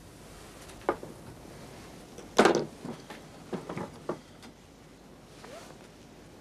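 Wooden knocks and thumps of objects handled on a wooden table: a sharp knock about a second in, a louder thump about two and a half seconds in, then a few lighter knocks.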